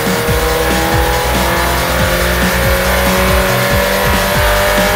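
Turbocharged engine on an engine dyno pulling under full load through a rev sweep, its pitch rising steadily as it climbs from about 4,500 to nearly 6,000 rpm on about 20 psi of boost.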